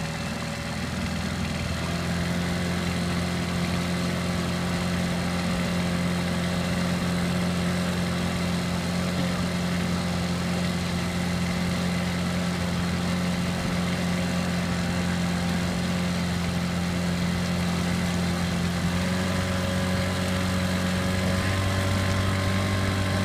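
Evinrude outboard motor running steadily, heard close up from the boat it drives. Its note shifts slightly twice near the end.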